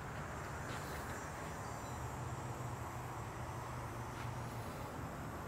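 Faint steady outdoor background: a low hum under a soft even hiss, with no distinct events.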